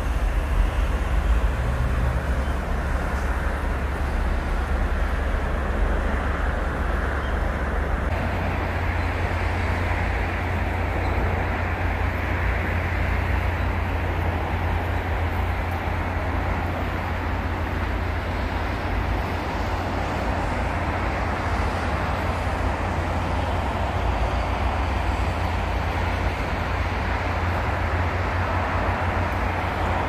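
Steady city traffic noise: a continuous low rumble of passing vehicles, a little louder from about eight seconds in.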